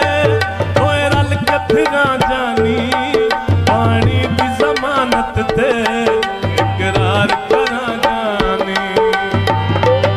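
Instrumental break in a Punjabi folk song: fast, even hand-drum strokes, with held drone notes and a wavering melody line above.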